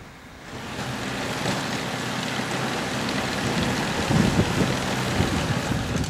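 Blizzard wind blowing across the microphone: a steady rushing noise that swells about half a second in, with gusty low buffeting.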